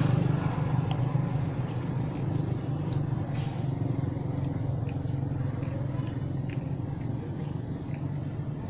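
Small motorcycle engine idling steadily, with a few faint ticks over it.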